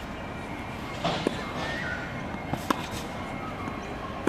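Tennis ball being struck by a racket and bouncing on a hard court during a baseline rally: sharp pops about every second and a half.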